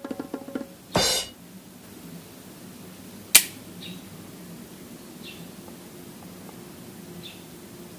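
Shimano Curado DC 151 baitcasting reel being handled and worked by hand: a quick run of small clicks at the start, a short rustling burst about a second in, and one sharp snap about three and a half seconds in.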